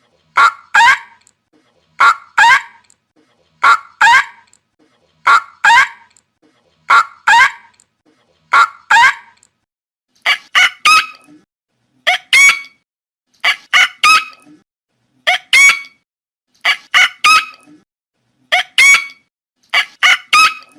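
Pelican calls: short harsh calls in pairs, repeated very regularly about every second and a half to two seconds. From about ten seconds in they come as quick clusters of three or four higher calls at the same pace.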